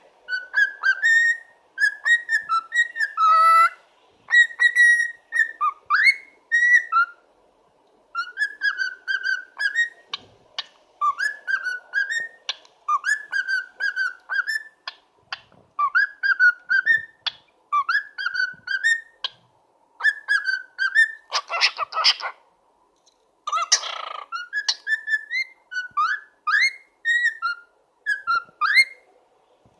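Young cockatiel whistling a repeated tune in short, warbling phrases, a whistled imitation of dubstep. Two harsh, raspy bursts break in about two-thirds of the way through.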